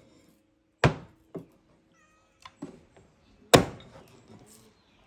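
A handful of sharp, separate knocks and thuds of things being handled in a kitchen, the loudest about three and a half seconds in. A faint high call sounds briefly around two seconds in.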